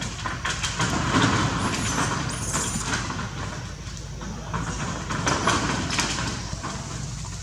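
Steady low rumble with rustling and clicking noises, and two short high squeaks about two seconds in.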